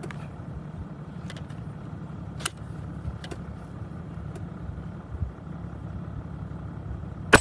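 Vehicle engine idling steadily, with a few faint clicks, then near the end a single loud, sharp rifle shot.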